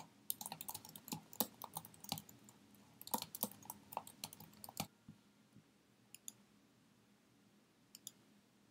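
Typing on a computer keyboard, a quick run of key clicks for about the first five seconds, then a few single clicks spaced out over the rest.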